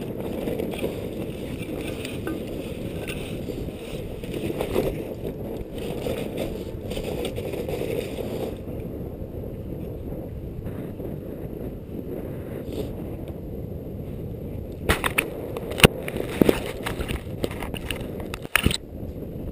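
Steady rumbling noise on a GoPro helmet camera moving over a snowy mountainside, the sound of wind and movement on the microphone. Several sharp knocks come near the end.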